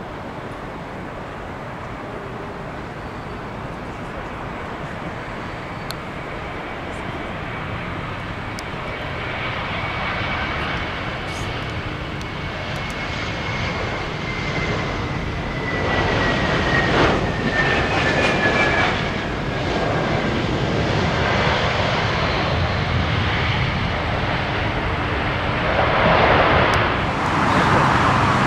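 Jet airliner on landing approach, its engine noise building steadily as it nears and loudest near the end. A high engine whine slowly falls in pitch through the middle.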